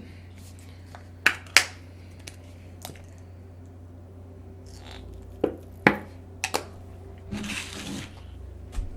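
Plastic sauce containers and a cup lid being handled: a scattering of sharp clicks and taps, then a short rustle of packaging and a soft knock near the end.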